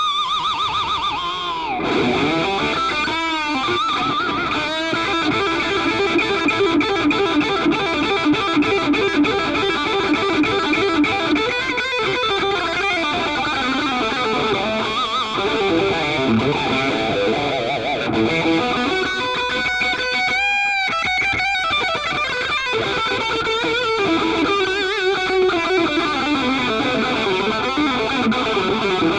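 Music: a distorted electric guitar playing over a dense backing.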